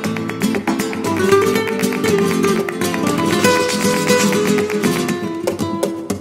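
Background music: flamenco-style acoustic guitar, quickly plucked and strummed.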